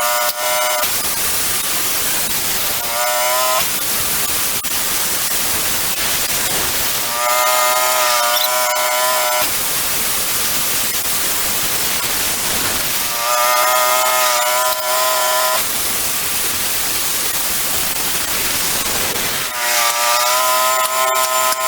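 Wood-Mizer portable bandsaw mill running, its band blade sawing through a log. A high, steady whine comes and goes several times over a rougher, continuous noise.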